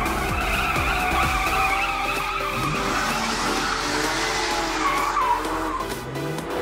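Dubbed race-car sound effect: a car engine running with tyres skidding, over background music.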